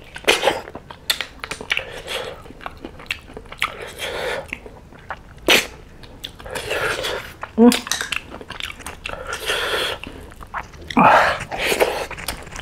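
Close-miked chewing and wet mouth sounds of a man eating snail curry and rice by hand: irregular smacks and sharp clicks, with a louder stretch of chewing near the end.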